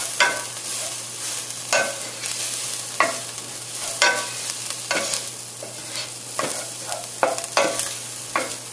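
Wooden spoon stirring and scraping chopped shallots and garlic around a nonstick pot, with a steady sizzle of them frying in olive oil underneath. The scrapes come about once a second.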